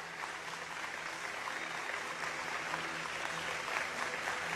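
Audience applauding, a dense patter of many hands clapping that grows slightly louder toward the end.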